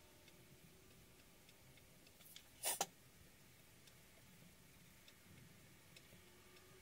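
Faint ticking in a quiet room. About a third of the way in comes one brief double scrape, much louder than the rest, as a ball embossing stylus is rubbed across a paper leaf to shape it.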